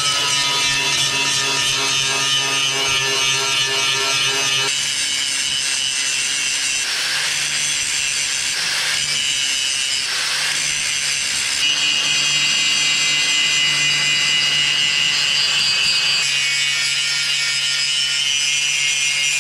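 Electric angle grinder running steadily while grinding paint and rust off the steel of tractor loader attachments down to bare metal, a spot for the welding ground clamp. Its steady motor whine sits under the hiss of the disc on the steel, and the tone shifts abruptly a few times.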